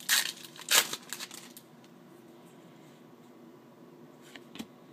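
Rustling of trading cards and their foil pack being handled, two quick rustles in the first second and a half, then quiet room tone with a faint hum and a couple of soft ticks near the end.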